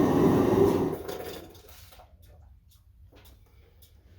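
Steady rushing noise of a running forge fire, which dies away over the first two seconds and leaves only a few faint clicks.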